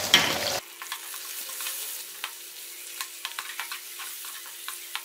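Onions, tomato and green chillies sizzling in hot oil in an aluminium pot, with a spoon stirring and scraping against the metal in many sharp clicks. The sizzle is louder for the first half second, then drops abruptly.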